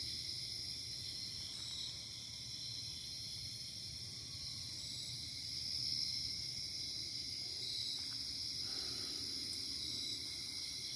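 Steady chorus of insects trilling in several high, unbroken bands.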